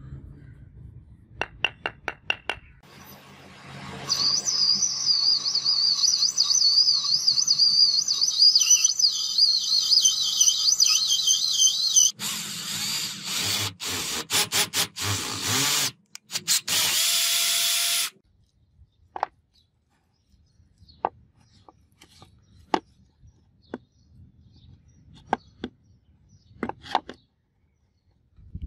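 An electric drill boring into a brass piece held in a vise: a loud, high squealing whine whose pitch wavers. It turns into harsher, noisier cutting and then a steady run that cuts off suddenly. After that come only scattered light taps and clicks of metal parts being handled.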